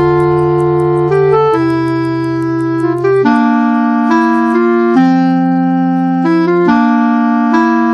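Background music: a keyboard playing held chords, changing every second or so.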